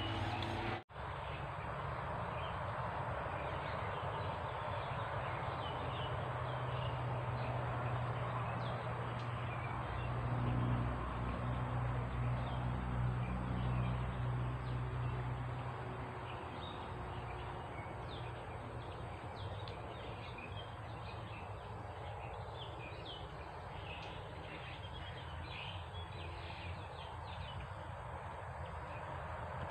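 Rural outdoor ambience: a steady hiss with many short bird chirps, more of them in the second half. A low hum rises and fades between about 8 and 16 seconds in.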